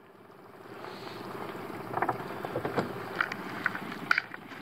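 Steady background noise that fades in over the first second, then scattered light clicks and knocks from a landed walleye being handled in a landing net.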